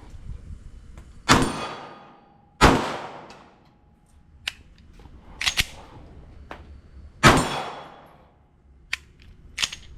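A pistol fires three loud shots, each followed by a long fading echo: about a second in, a second after that, and again about seven seconds in. Between them come quieter sharp clicks. The long gaps point to stoppages, which the shooter blames on bad primers.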